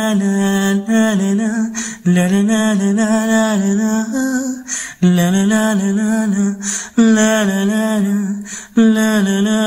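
Male voice singing long, wavering melodic notes in a Hindi love song, in phrases about one to two seconds long with short breaths between.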